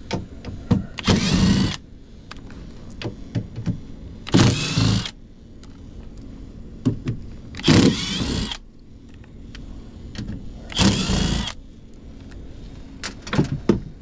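Cordless drill/driver running in about five short bursts, its motor whining up with each one as it backs out sheet-metal screws on an air handler's access panel. Small clicks and knocks of handling come in between.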